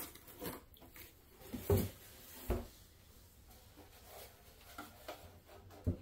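A few soft knocks and thumps as a small metal-cased stereo amplifier is picked up and turned round on a cloth-covered table, with light rustling between them; the loudest knock comes about two and a half seconds in, another just before the end.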